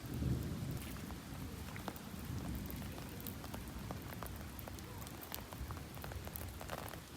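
Rain falling steadily, with many separate drops ticking.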